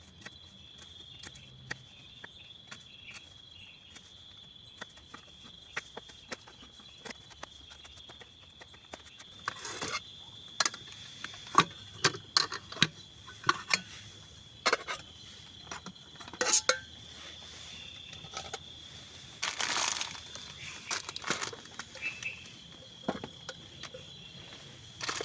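Steady high-pitched insect chirring, like crickets, under scattered clicks and knocks. From about ten seconds in the knocks and clattering come louder and more often, with a short noisy burst just before twenty seconds.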